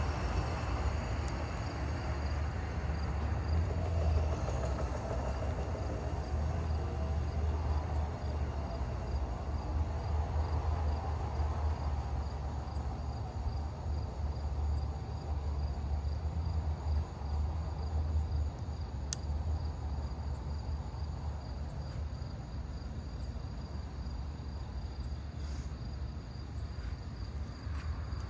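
Crickets or other night insects chirping in a steady thin high trill, over a steady low rumble that eases off a little after about 18 seconds.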